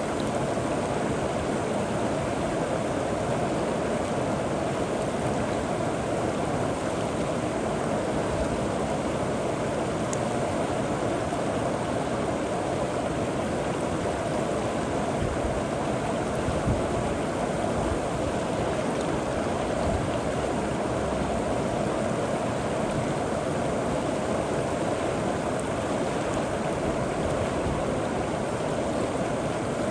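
A river flowing steadily over rocks, making a continuous rushing and gurgling.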